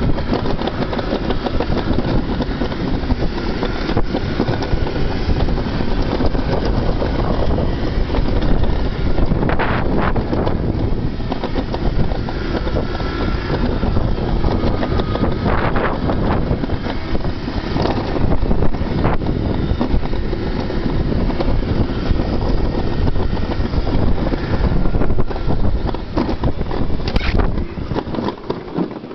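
Summer toboggan sled's wheels rumbling at speed along a steel trough track, with wind buffeting the microphone. The rumble dies down near the end as the sled slows into the station.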